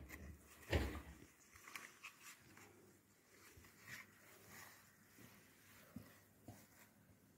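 Faint handling sounds of a small cardboard box being opened and its contents pulled out: soft rustles and small knocks, one louder one just under a second in.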